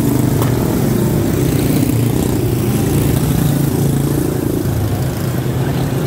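A pack of quarter midget race cars with single-cylinder Briggs & Stratton Animal engines running at racing speed, a steady engine drone that eases a little near the end as the cars pull away.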